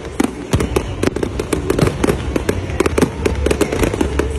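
Fireworks display: aerial shells and crackling stars going off in a dense run of sharp pops and bangs, several a second, over a steady low rumble.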